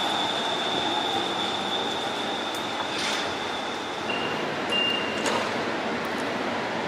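Light-rail train running on street track, with a steady high-pitched squeal that stops about four seconds in. A shorter, lower whine follows over a constant broad noise.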